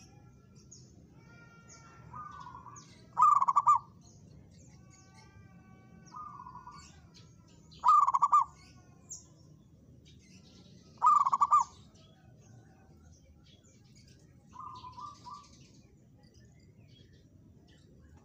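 Zebra doves (perkutut) cooing: three loud stuttering coo phrases a few seconds apart, each under a second long, with three fainter phrases of the same kind in between, as from a second dove answering. Thin high chirps of small birds come and go in the background.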